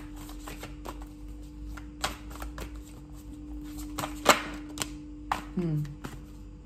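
A deck of tarot cards being shuffled by hand, cards slid off the pile with scattered sharp snaps, the loudest about four seconds in. A steady low hum runs underneath.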